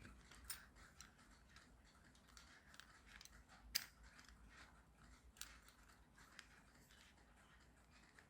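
Near silence with faint, scattered small clicks and taps of a small security-tag part being handled and flipped over, one sharper click a little under four seconds in.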